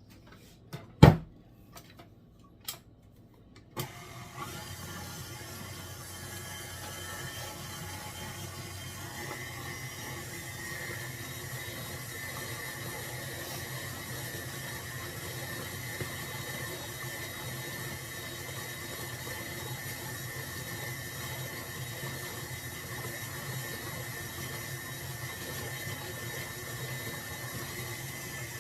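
A few sharp knocks against the bowl, then about four seconds in an electric mixer starts up and runs steadily, churning cultured cream toward butter.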